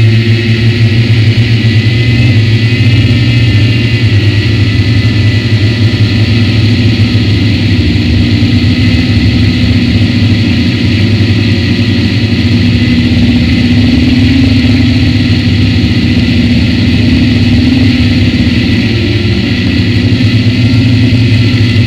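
Motors and propellers of a remote-controlled camera aircraft, heard from on board, buzzing steadily in flight with small shifts in pitch as it manoeuvres.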